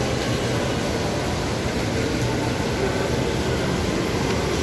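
Steady background ambience of a busy shopping mall: an even rumbling noise with faint distant voices.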